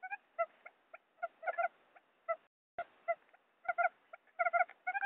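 Recorded wild quail lure call: short, clipped pitched notes repeated in quick clusters of two to four. There is a brief gap of silence a little past halfway.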